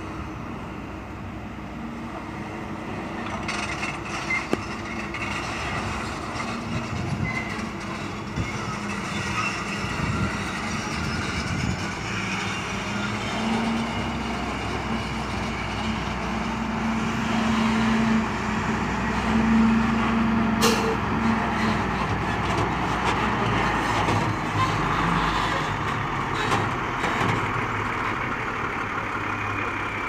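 Diesel engine of a Hino dump truck running as the truck drives past close by, its steady engine note growing louder toward the middle and then easing off a little. A single sharp click comes about two-thirds of the way through.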